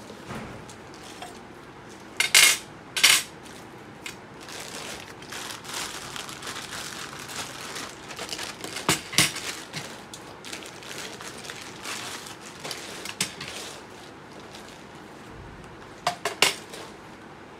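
Parts of an electronic duck-call kit being unpacked onto a glass countertop: hard pieces such as metal mounting brackets and speakers clink and knock as they are set down, with plastic wrapping rustling in between. There are two loud sharp clacks a couple of seconds in, another about halfway, and a quick run of three near the end.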